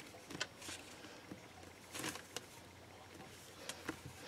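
Faint, scattered rustles and soft taps of hands handling and pressing rolled snakes of polymer clay on a sheet-covered work surface.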